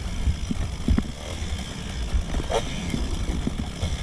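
Dirt bike engine running and revving up and down while riding, with repeated low thumps, sped up to double speed.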